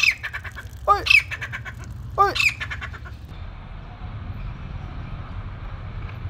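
Grey francolin (desi teetar) calling: three loud calls about a second apart in the first three seconds, each a quick run of ringing notes.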